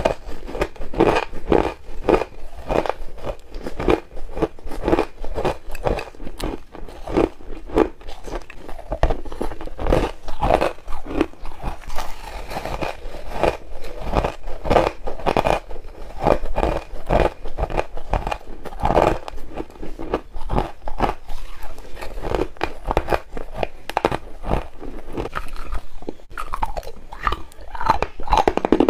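Chunks of purple crushed ice being bitten and chewed, a quick, continuous run of crisp crunches.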